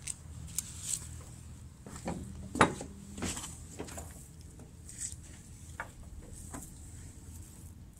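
Scattered light clicks and knocks, with one louder knock about two and a half seconds in, from a fishing magnet loaded with nails being handled.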